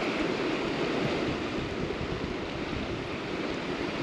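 River water rushing steadily over rocks, a constant even wash of noise with no breaks.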